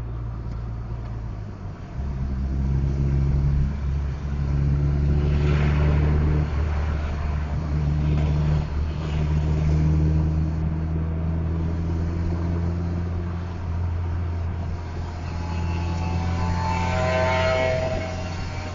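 A large diesel bus engine running with a steady low drone, growing louder about two seconds in, its pitch shifting a few times. A higher, pitched sound with several tones rises over it near the end.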